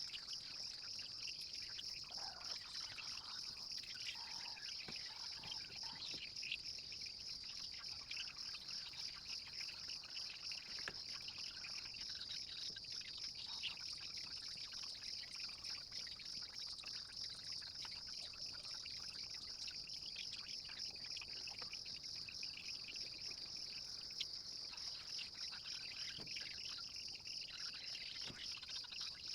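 Steady high-pitched insect chorus, crickets or cicadas, running unbroken, with scattered faint chirps over it.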